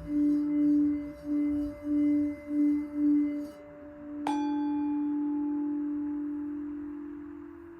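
Singing bowl being played: a low ringing tone swells and fades in quick pulses, about two a second, then a sharp strike a little past four seconds in rings on and slowly fades.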